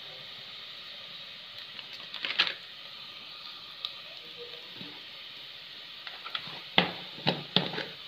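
Sliced onions frying in ghee in a pressure cooker, a steady sizzle, with a wooden spatula clicking and scraping against the pot and a few louder knocks near the end.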